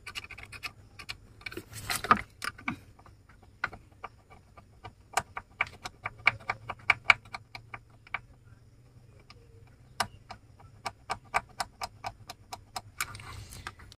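Metal tip of a screwdriver-type line tester scraping and tapping on a bolt and painted steel body panel, a long run of quick, uneven ticks and clicks. The paint is being scraped off a ground point so that the earth wire makes good contact with the body.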